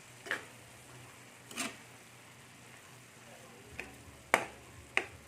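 Cooking utensil knocking against a pan while squid is stirred, about five separate short clinks that ring briefly, the loudest a little past the middle.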